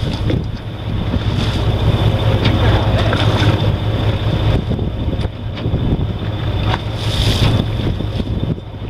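A fishing boat's engine runs with a steady low hum, with wind buffeting the microphone and waves washing against the hull.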